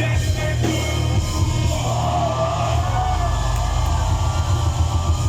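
Live rap concert music over a venue sound system: a heavy bass-driven track with a wavering vocal line in the middle.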